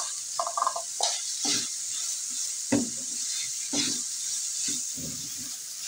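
Chicken and chopped vegetables sizzling in a nonstick frying pan, stirred with a silicone spatula. The hiss of frying is steady, and the spatula scrapes across the pan about once a second.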